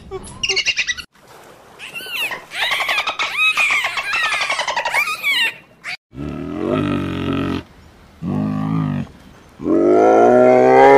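Polar bear calling: three long, low growling calls at a steady pitch, the third the longest and loudest, rising in pitch. Before them, a run of shrill, wavering high-pitched animal calls.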